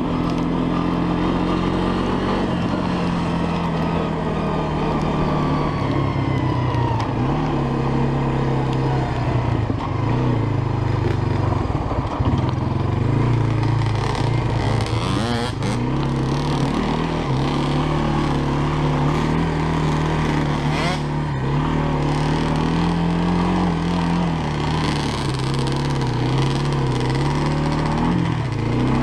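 Honda FourTrax ATV engine running as it is ridden along a trail, its revs rising and falling with the throttle.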